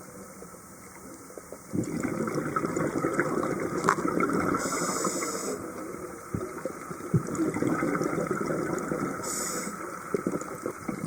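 Scuba diver breathing through a regulator underwater: long rushes of exhaled bubbles, broken twice by a short hiss of inhalation, about five seconds apart.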